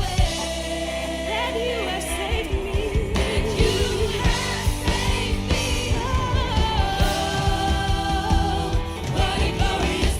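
Gospel worship music with singing over a steady beat of drums and bass.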